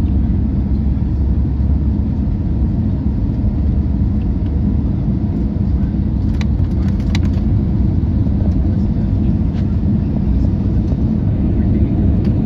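Steady low rumble inside an airliner cabin on its landing approach, from the engines and the air rushing past the fuselage. Two faint clicks come about halfway through.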